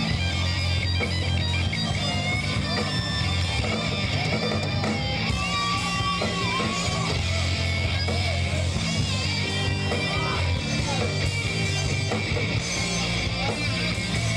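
Live rock band playing with no vocals: an electric guitar played lead with bent and sliding notes over a steady bass guitar line.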